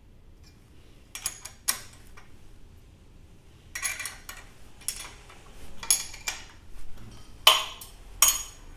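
Small steel pieces being handled and set down on a steel workpiece: about nine sharp, bright metallic clinks and clanks at irregular intervals, the loudest about three quarters of the way through.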